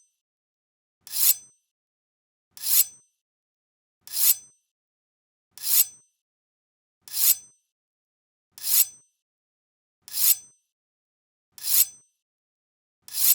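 A Japanese sword (katana) drawn from its scabbard over and over, about every second and a half, nine times. Each draw is a short sliding scrape that swells and ends in a brief high metallic ring.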